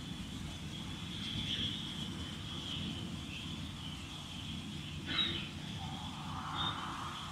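NSWGR 32 class steam locomotive standing with steam leaking at the front, giving a low steady rumble under a thin, even hiss. A short chirp cuts in about five seconds in.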